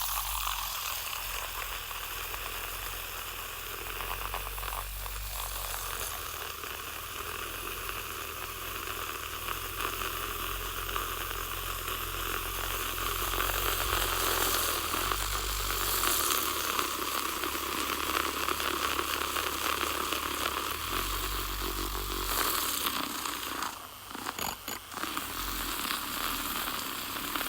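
Milk being frothed: a steady hiss with a low rumble underneath, which stutters and dips briefly near the end.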